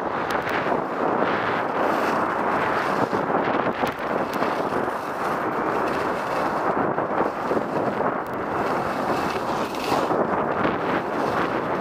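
Steady rush of wind over the camera microphone of a skier moving downhill at speed, mixed with the scraping hiss of skis on packed snow.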